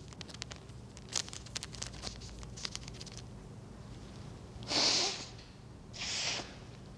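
A woman snorting a powdered drug up her nose: two sharp sniffs about a second apart, the first louder. Before them come faint small clicks and rustles as the paper packet is handled.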